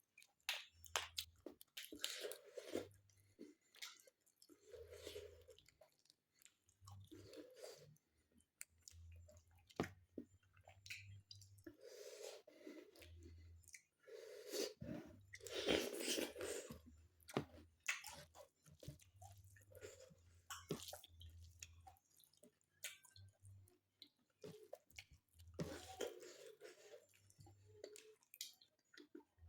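A person chewing and eating, with wet mouth sounds, smacking and occasional crunches coming in an irregular run, loudest about halfway through.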